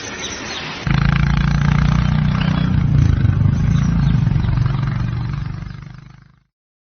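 Royal Enfield Classic 350's single-cylinder engine idling with a steady exhaust thump. It comes in about a second in and fades out near the end.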